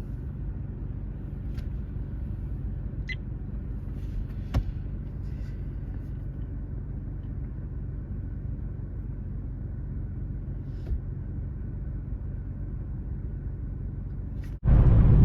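Steady low rumble of a car on the move, with a few light clicks, one sharper about four and a half seconds in. Near the end it cuts off suddenly and a much louder rumble takes over.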